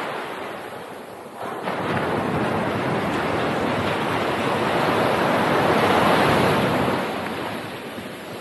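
Sea surf breaking and foaming up the sand at the waterline, one wash building to its loudest about six seconds in, then easing off.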